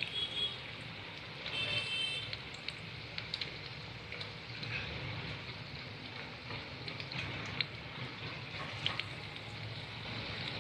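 Marinated, cornflour-coated chicken pieces deep-frying in hot oil in a kadai: steady sizzling with scattered sharp crackles. A brief high-pitched tone sounds twice in the first two seconds.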